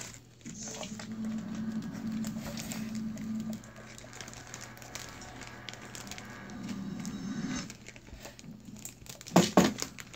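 Small clicks and rustles of a cat working at a treat on a wooden floor, over a steady low hum, with a few sharp knocks close together near the end.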